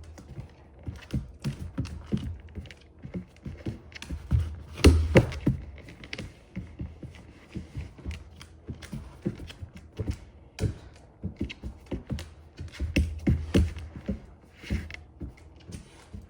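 A Labrador's claws clicking and paws tapping on a hard floor in irregular steps as it moves about, with a heavier thump about five seconds in.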